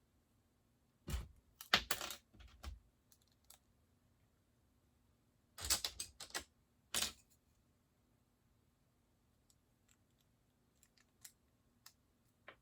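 Plastic Lego bricks clicking and clattering as they are handled and snapped together, in two short bursts of clicks about a second in and near six seconds, then a few faint ticks.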